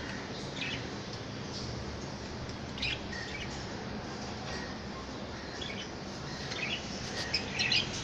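Caged budgerigars chirping in short, scattered calls that come more often near the end, over a steady background noise.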